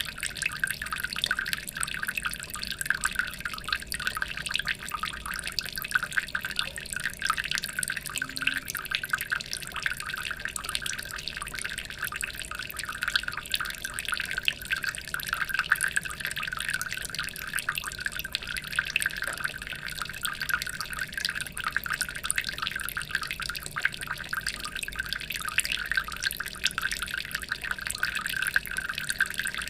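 Water trickling and splashing steadily, a dense patter of small drips and splashes with no pauses.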